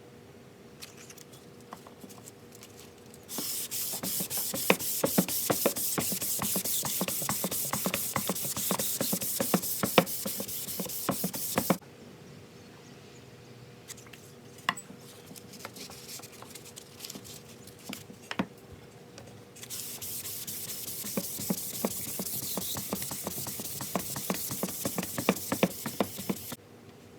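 Sanding the walnut cutting board: two long stretches of hissing, scratchy noise thick with small ticks, each starting and stopping abruptly, with quieter scattered scratches and clicks between.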